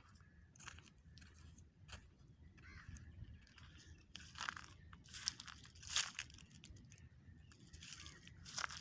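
Dry leaf litter and twigs crunching and crackling in short, irregular bursts, the loudest about six seconds in.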